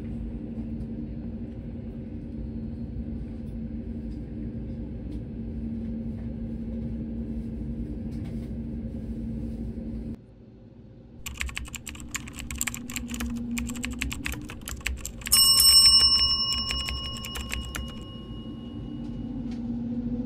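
Steady hum of an Airbus A320neo airliner cabin on the ground, with a low drone. About ten seconds in it drops away, and a run of sharp clicking and rattling follows. Then a single bell-like chime rings out, the loudest sound, and fades over a few seconds.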